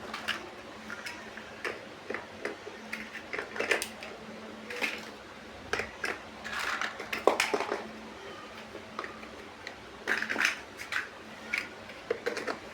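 Plastic building bricks clicking and clattering as they are handled and pressed together: irregular sharp clicks and taps, sometimes several in quick succession, over a faint steady hum.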